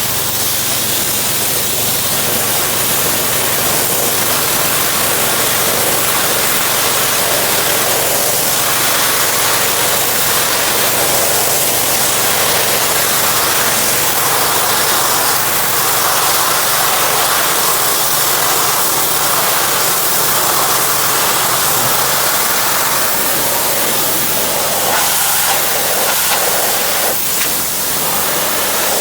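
Pressure washer running steadily, its water jet spraying with a loud, constant hiss over a low engine hum.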